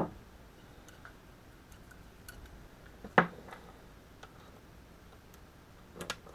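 Light clicks and ticks of small AN hose-end fitting parts being handled, with one sharper click about three seconds in and two more near the end.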